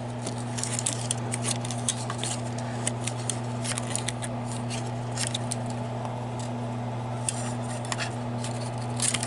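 Small, irregular clicks and ticks of 16 mm film and the projector's metal guides and locking tabs being handled while the film is threaded, over a steady low hum.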